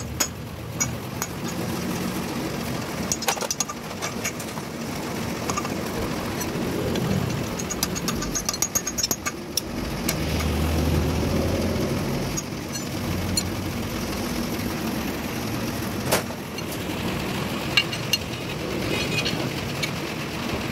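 Scattered metallic clinks and hammer taps as bolts are fitted and tapped into the cast cover of a differential case, with a quick run of clinks a little before halfway. A steady engine hum runs underneath.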